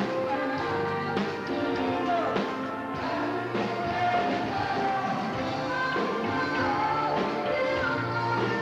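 A band playing a song, with a singing voice carrying the melody over the instruments.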